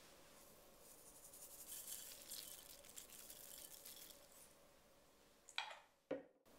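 Sesame seeds sprinkled over broccoli in a bowl: a faint, fine pattering of many tiny ticks for about four seconds, then two short sharp clicks near the end.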